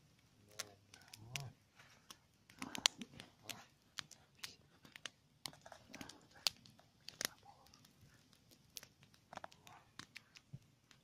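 Wood campfire crackling, with faint irregular sharp snaps and pops, and a few murmured voices.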